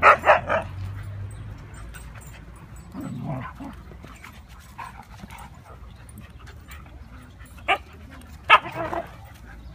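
Several Siberian huskies play-fighting, barking and yipping in short outbursts, loudest in the first half second and again about eight and a half seconds in.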